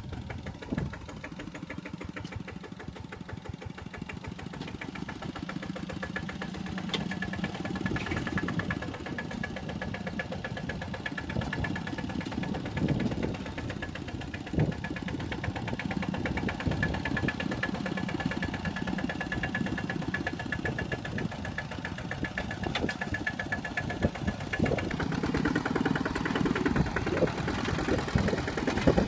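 Single-cylinder diesel engine of a Kubota two-wheel walking tractor running under load as its cage wheels work through mud, with a few sharp knocks along the way. It grows louder over the last few seconds.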